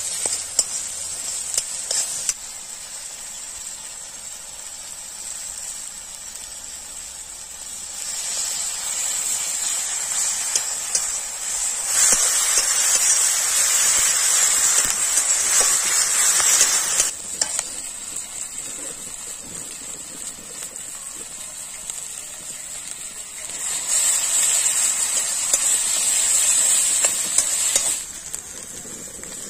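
Onion, tomato and green chilli masala sizzling in an iron kadai while a metal spatula stirs and scrapes against the pan. The sizzle grows louder for several seconds about eight to twelve seconds in, and again for a few seconds near the end.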